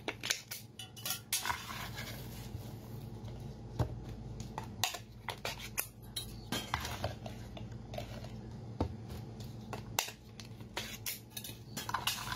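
A glass jar being tapped and shaken to empty fried silkworm pupae onto a plate: irregular sharp knocks and clinks of jar on plate, with food pieces clattering down.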